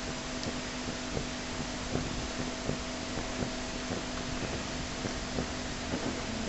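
Steady hiss and low hum with faint, irregular ticks from a model steam engine's boiler heating over its lit burner as it begins to make steam.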